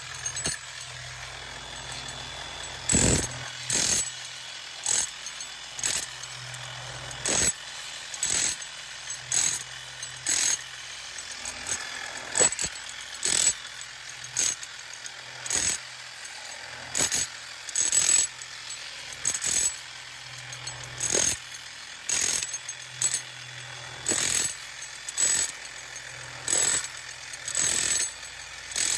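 Power chisel chipping glass pool tile and its setting material off a wall in short bursts, about one a second, with a steady low hum between the bursts.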